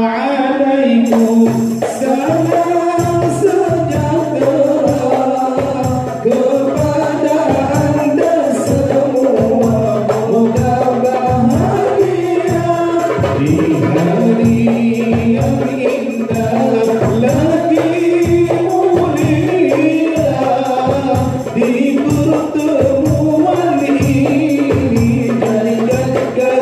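A male nasyid group singing together into microphones, accompanied by a tambourine and a hand drum beating a steady rhythm.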